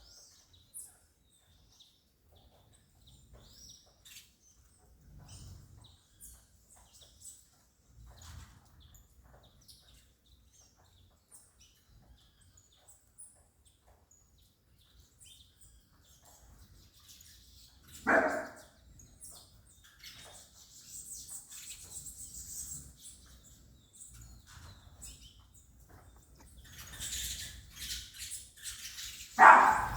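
Scattered high chirps from saffron finches. A dog barks once, sharply, about halfway through and again near the end.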